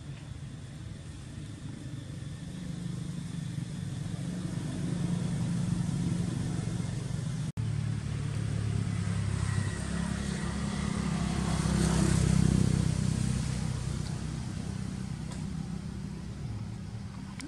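Motor vehicles passing on a road: a low engine rumble that swells twice, the second and louder time about two-thirds of the way in, with a momentary dropout between the two.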